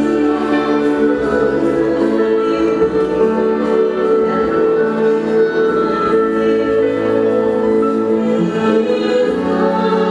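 Background music: sustained orchestral-sounding chords that change every second or two, with no speech.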